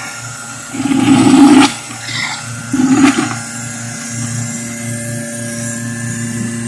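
Milking machine under vacuum, its claw and teat-cup inflations sucking hot bleach sanitiser water out of a bucket. Two loud gulping sucks, about one second and three seconds in, as the cups are raised and air rushes in with the water, then a steady suction hum from the vacuum line.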